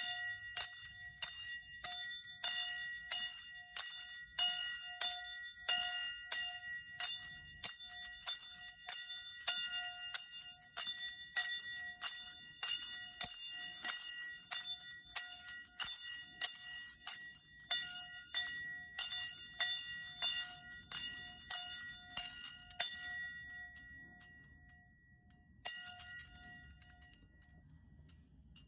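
A small bell rung over and over, about two bright, high rings a second in an even rhythm, used as sound healing. The ringing stops a few seconds before the end, after one short last burst.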